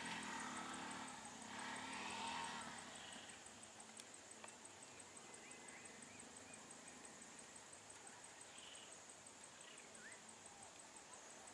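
Quiet roadside ambience: a steady high insect drone with a few faint chirps. A vehicle engine runs low for the first two seconds or so, then fades out.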